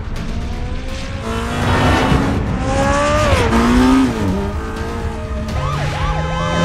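Sports car engine revving hard, its pitch climbing for about two seconds before dropping off sharply. Near the end a police siren yelps in quick repeated sweeps.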